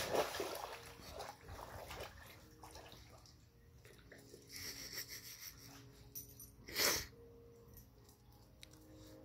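A corgi and another dog moving in a shallow muddy puddle: splashing and sloshing water at the start, then quieter dripping and shuffling, with one short louder splash of noise about seven seconds in.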